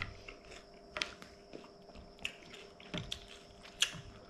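Chewing of crispy fried anchovies (ikan bilis) in sambal: scattered short, sharp crunches, irregular and about a second apart.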